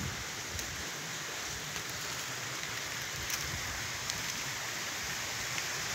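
Steady outdoor hiss with a few faint scattered clicks.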